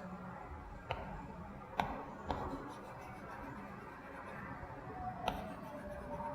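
Hands handling boxes and packaging: a few sharp clicks and taps, one about a second in, two close together around two seconds, and one about five seconds in, over a steady low hum.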